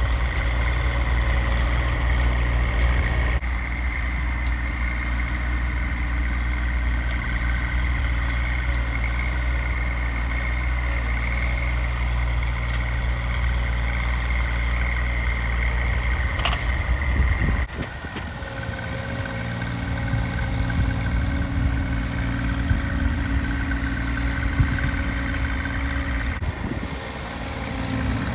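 Tractor engine running steadily under work while clearing snow, with abrupt changes in its sound about a third of the way in and again about two-thirds of the way in.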